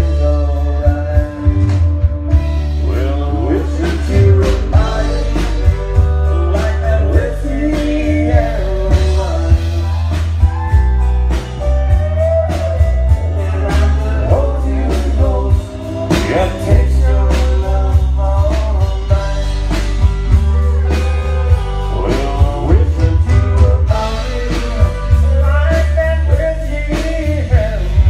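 Live country band playing: a steady drum beat, electric bass and guitar, with a man singing lead.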